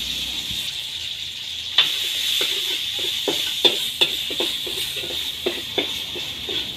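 Chili paste sizzling in a hot metal wok, with a steady hiss. From about two seconds in, a metal spatula stirs it, clicking and scraping against the wok two or three times a second.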